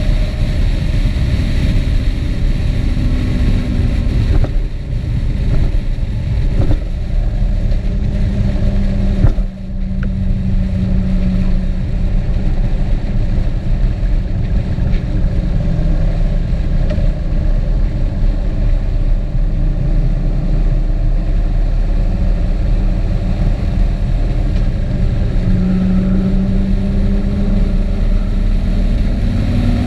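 A motor vehicle on the move: a steady engine note with heavy road and wind noise. The engine pitch drifts up and down, with a brief drop in level about nine and a half seconds in.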